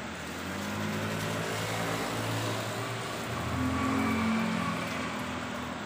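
A motor scooter's small engine passes along a wet road through steady rain. Its engine hum swells twice, loudest about four seconds in, then fades.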